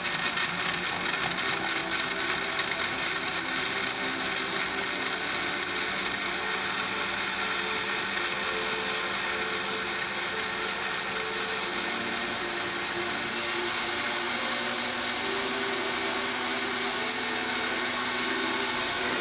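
An ordinary (not high-speed) countertop blender runs steadily, grinding shredded coconut with water into coconut milk. Its motor hum shifts a little in pitch partway through.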